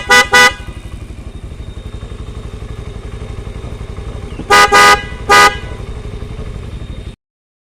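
Eco 9 car horn fitted to a motorcycle, sounded in short, very loud toots: two quick toots right at the start, then three more a little past halfway. Between the toots the motorcycle's engine idles with a steady low pulse.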